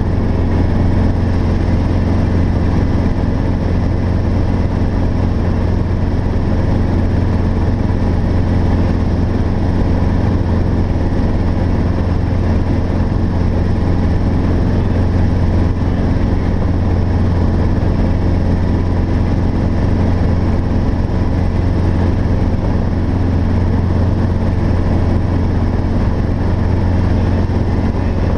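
Robinson R22 helicopter in steady cruise, heard from inside the cabin: its engine and rotors make an even, unchanging drone dominated by a strong low hum.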